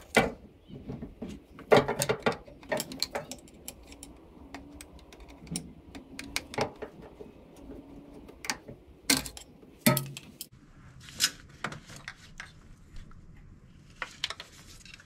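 Irregular metallic clicks, taps and scrapes of two screwdrivers prying a wiring-harness connector loose, with a few sharper knocks among them.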